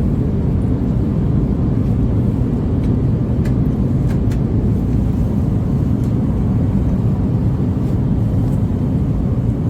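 Steady low rumble of an Airbus A350-900's cabin in flight: engine and airflow noise heard from a passenger seat.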